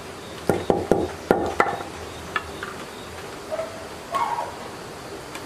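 Small metal machine parts clicking and knocking together as they are handled and fitted by hand: a quick run of about five sharp knocks in the first second and a half, then a few softer clinks.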